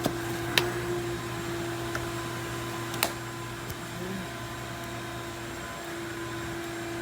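Plastic fluid-reservoir caps being snapped shut under a car's hood: a few sharp clicks, the loudest about half a second and three seconds in, over a steady motor hum.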